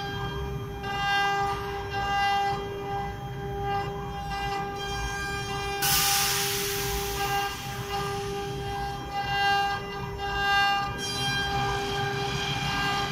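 CNC router spindle whining at a steady high pitch while its bit carves a relief into a wooden board, the cutting noise swelling and fading as the head moves. About six seconds in, a burst of hiss lasts roughly a second.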